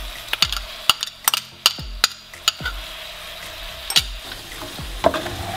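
Eggplant and peppers sizzling in a frying pan as a soy-sauce dressing is poured in, with a quick run of sharp clinks from a metal spoon scraping the sauce bowl in the first couple of seconds and a few more knocks later.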